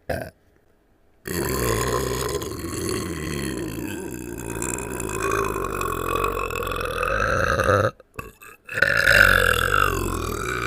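Cartoon burping in Squidward's voice: one very long, drawn-out burp lasting about six seconds, then after a brief break a second long burp starting near the end.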